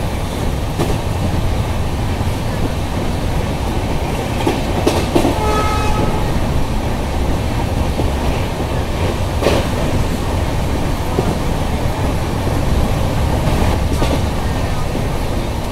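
Passenger train running along the track: a steady low rumble with occasional sharp clicks of wheels over rail joints. A horn sounds briefly about five seconds in.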